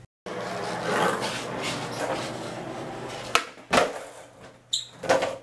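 Skateboard wheels rolling over a smooth hard indoor floor for about three seconds. Then come two sharp clacks of the board a little after three seconds in, a brief high squeak, and another clack near the end.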